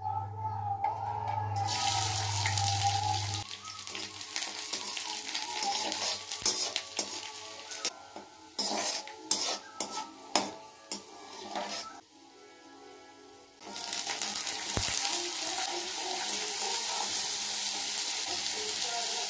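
Chopped garlic and whole spices sizzling in hot oil in a steel kadhai, with a metal spatula clicking and scraping against the pan. The sizzle drops away briefly about two-thirds through, then comes back as a steady sizzle of raw potato sticks frying.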